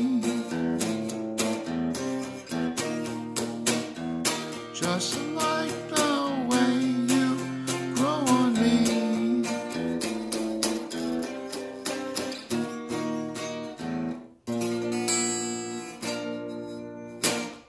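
Electric guitar played with a pick: an instrumental passage of picked notes and chords in B flat, with some bent notes. About fourteen seconds in it drops out briefly, then a last chord rings, and a loud knock comes just before the sound stops.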